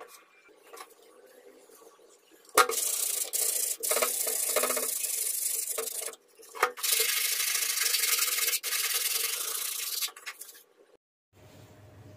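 Aerosol spray can spraying paint onto a metal cleaver blade in two long, steady hisses of about three and a half seconds each, with a short break between them.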